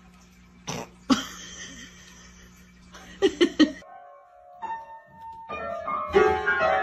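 A few short knocks and sharp sounds, then, about four seconds in, an upright piano sounding single notes and clashing clusters of keys struck unevenly by a dog pawing at the keyboard, growing louder near the end.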